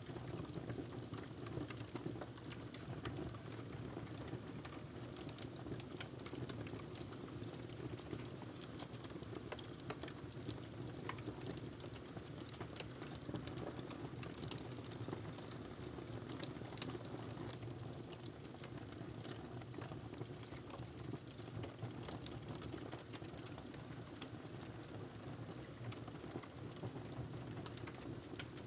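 Wood fire crackling in a fireplace: a steady low rumble with many small, irregular pops and snaps throughout.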